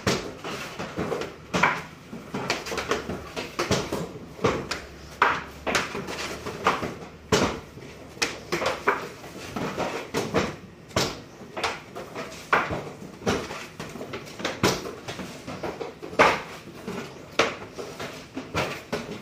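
Irregular knocks and clatter of wooden screen-printing frames being lifted and set down on printing tables during manual screen printing.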